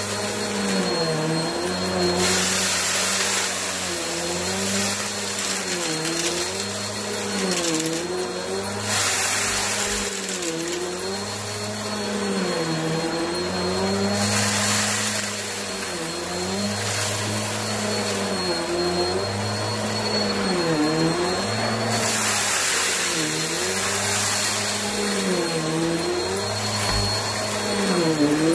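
Upright bagless vacuum cleaner running on carpet as it is pushed back and forth, its motor pitch dipping and recovering with each stroke about every two seconds. Now and then a gritty, hissing crackle rises over it as it sucks up dry crumbs and lint.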